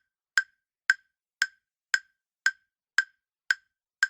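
Countdown-timer ticking sound effect: sharp, even clock-like ticks about two a second, eight of them, giving the viewer time to answer the quiz question.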